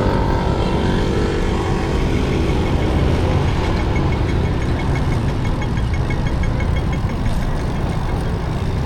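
City street traffic heard from a moving bicycle, a steady rush of vehicle noise with heavy wind rumble on the microphone. Near the start a vehicle's engine passes with falling pitch, and in the middle there is a quick run of faint ticks.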